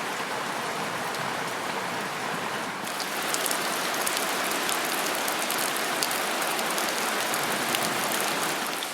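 Steady rain falling, a continuous hiss of drops striking surfaces. About three seconds in it grows louder and crisper, with many individual drop impacts ticking through the hiss.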